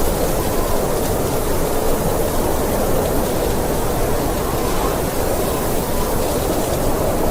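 Snowstorm wind blowing: a steady, dense rushing noise with no separate gusts or pauses.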